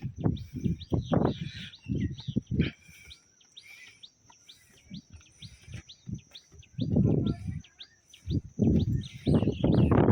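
A small bird chirping over and over, short high chirps at about two or three a second. Low thuds and rumbles come in bursts near the start and again in the last few seconds.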